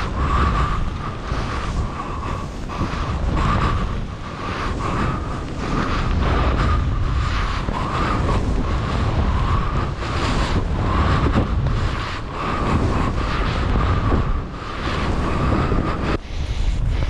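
Wind buffeting the microphone of a camera carried by a skier descending deep powder: a loud low rumble that swells and fades with the skier's speed, with irregular surges of hiss as the skis carve through the snow. A thin wavering whistle sits over it and stops about a second before the end.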